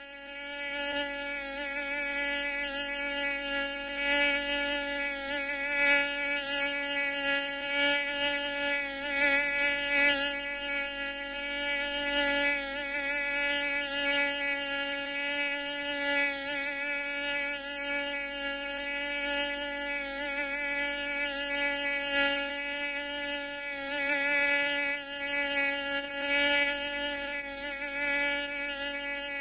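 Mosquito in flight: a continuous high buzzing whine from its wingbeats, holding a steady pitch that wavers slightly and swells louder and softer as it moves.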